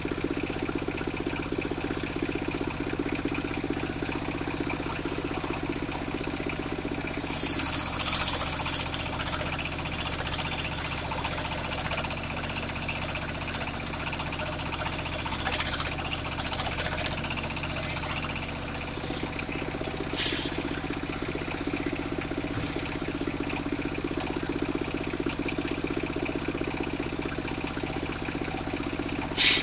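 Engine of a circular sawmill running steadily at an even speed. A loud hissing burst comes about seven seconds in and lasts nearly two seconds, with a short one near twenty seconds and another at the very end.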